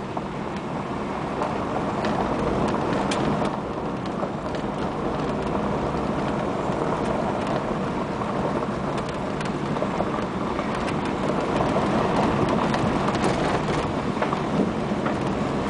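Vehicle driving over a rough track: a steady rumble of engine and tyres, with many small scattered clicks and rattles.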